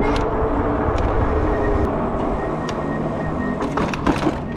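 Wind rushing over the camera microphone while riding an electric bike, with a faint steady motor whine in the middle and a few short clicks and rattles, the densest near the end.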